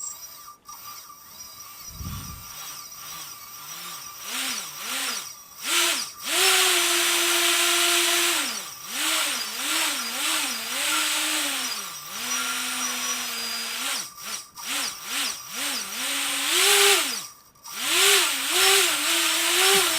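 T-Motor 2206 2000KV brushless quadcopter motors spinning under radio throttle control: a whine that rises and falls again and again as the throttle is blipped, held steady for a second or two at times, and briefly dropping out near the end.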